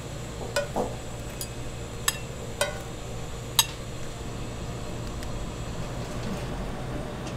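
Dishes or glassware clinking, four or five sharp, brief knocks in the first few seconds, over a steady low hum.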